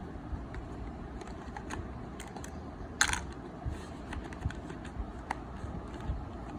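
Hands handling a smartphone and its retail box: scattered small clicks and taps, with one short, loud rustle or scrape about three seconds in.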